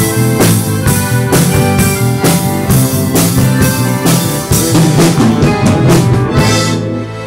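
A small rock band plays with a steady drum-kit beat of about two hits a second, under electric bass, electric guitar and accordion. Near the end the drums stop and the final chord rings out, fading.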